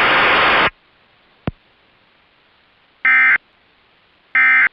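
Emergency Alert System end-of-message data bursts: two short, identical warbling digital tone bursts about a second and a quarter apart, the coded 'NNNN' signal that closes a warning. Before them a loud radio hiss cuts off under a second in, followed by a single click.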